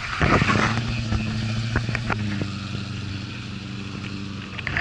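A car engine running, loudest in the first second and then settling to a steady idle.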